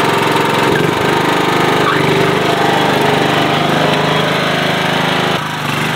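John Deere 240 riding lawn tractor's engine running steadily as the mower drives off, with a brief dip in level near the end.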